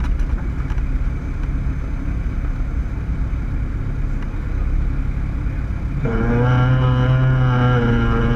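Cessna 152's four-cylinder Lycoming engine and propeller running steadily, heard inside the cockpit. About six seconds in, a louder droning hum with many overtones comes in on top and holds.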